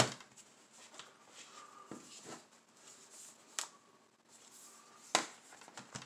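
Handling noise from a laptop's plastic bottom cover being taken off: faint rustling with a few sharp clicks, the loudest about five seconds in.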